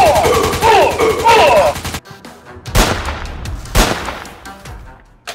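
Sound-effect machine-gun fire, a rapid even stream of about ten shots a second with a wailing sound over it, cutting off suddenly about two seconds in. Then two single gunshots about a second apart, with a ringing tail after each.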